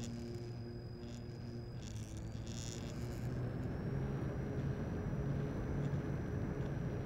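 Electric motor and propeller of a radio-controlled model plane running steadily in flight, with wind rush, heard from the onboard camera. A thin high whine steps up slightly in pitch a few seconds in.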